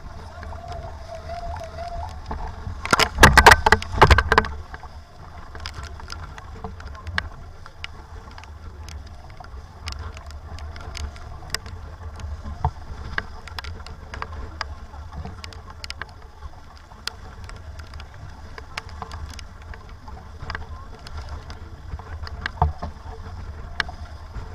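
Sailboat underway in strong wind: a steady low wind rumble with water noise and scattered sharp ticks, and a loud rattling burst about three seconds in that lasts a second and a half.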